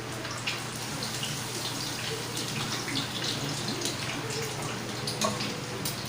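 Chicken wings deep-frying in hot oil: a steady sizzle with scattered sharp pops and crackles.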